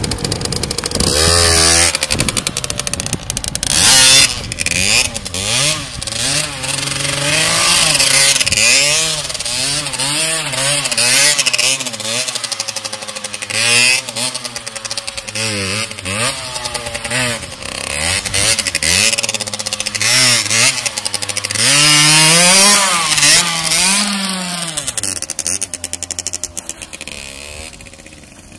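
Small motorcycle engine revving up and falling back over and over as the throttle is worked, with several loud bursts of rushing noise.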